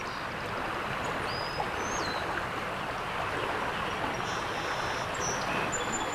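River current running steadily over shallow riffles, with a few short high bird chirps and whistles above it.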